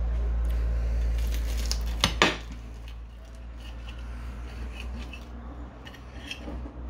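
Knife clattering against a plate, two sharp knocks about two seconds in, then light taps and scrapes as a fried spring roll is cut in half on it. A steady low hum runs underneath, fading after the first two seconds.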